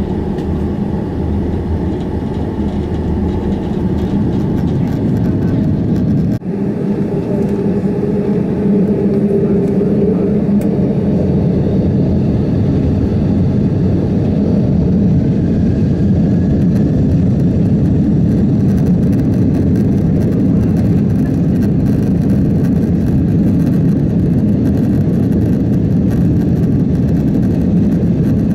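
Jet engine and cabin noise inside a Boeing 767-400 on the ground. It is a steady low rumble that grows a little louder about eight seconds in.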